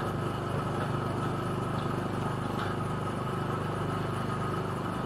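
Go-kart engine running steadily at speed, an even drone with a thin steady high whine over it.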